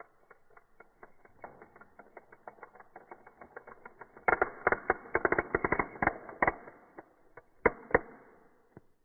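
Hot Wheels toy car on plastic track: a steady run of light plastic clicks, about five a second, then a louder burst of rapid clatter about four seconds in, and two sharp knocks near the end.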